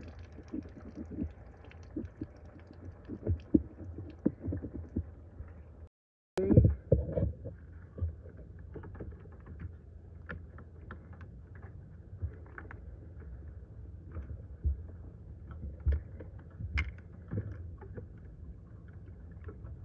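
Light, scattered knocks and clicks from hands and a hand tool working a coolant hose connection in an engine bay, over a low steady rumble. The sound drops out briefly about six seconds in, and a louder knock follows.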